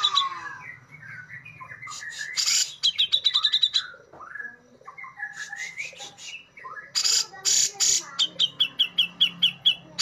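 Grey-cheeked bulbul (cucak jenggot, Alophoixus bres) singing a varied song. Harsh rasping chatters alternate with quick runs of clear repeated notes, about eight a second, and warbled phrases. The last run, near the end, steps down in pitch.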